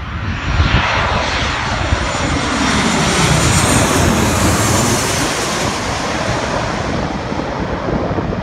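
Twin-engine jet airliner on final approach passing low overhead with its gear down. Its engine roar swells to a peak about halfway through, with whining tones falling in pitch as it goes over, then a steady roar as it moves away. Wind rumbles on the microphone.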